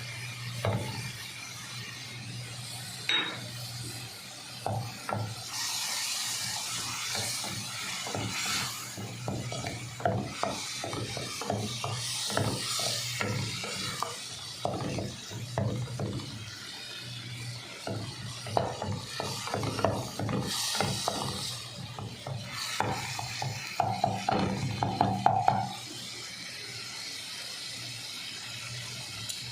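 A spatula stirring and scraping in a pan of sizzling chicken with chili and orange juice, in irregular scrapes and clicks over a steady low hum.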